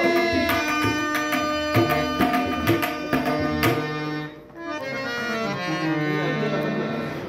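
Harmonium and tabla playing a Kannada stage-drama song accompaniment: held reed-organ notes over tabla strokes, the drumming stopping about four seconds in and the harmonium carrying on alone.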